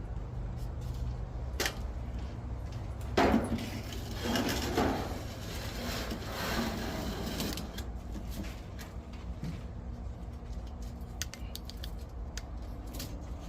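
Scattered knocks, clunks and scraping from a metal belt grinder and its fittings being shifted and handled, over a steady low hum.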